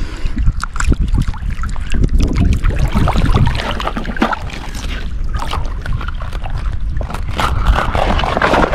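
Wind rumbling on the microphone over water sloshing and splashing, with scattered clicks and knocks. It grows a little louder near the end.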